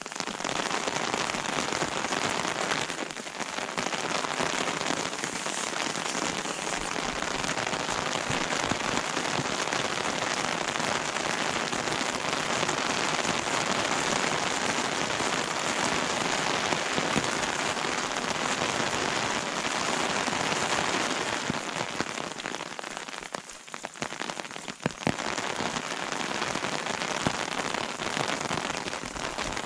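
Steady rain falling on the forest and path, an even hiss with a short lull about three-quarters of the way through.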